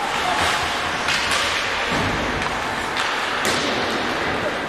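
Ice hockey play on the rink: skates scraping across the ice, with a few sharp knocks, two of them close together about three seconds in.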